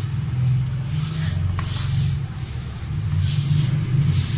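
Hands rubbing a dry flour mixture against the sides of a plastic bowl in several short, hissy strokes. A steady low hum runs underneath.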